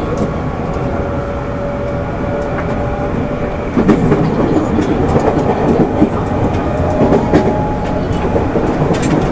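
Running noise inside a JR 205 series 600 electric train carriage: a steady rumble of wheels on rail with scattered clicks, which grows louder and rougher about four seconds in.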